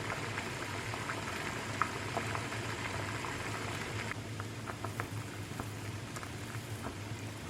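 Water bubbling at a boil in a pot, with many small irregular pops over a steady hiss.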